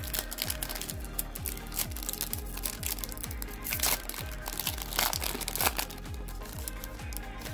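Foil wrapper of a Yu-Gi-Oh! booster pack being torn open and crinkled by hand, with the loudest crackles about halfway through and again near five seconds in. Background music with a steady low beat runs underneath.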